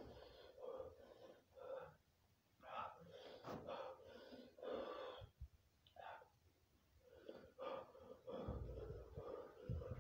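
A man breathing hard through the burn of a Carolina-reaper Jolo chip, in short wheezy gasps about once a second. There is a low rumble near the end.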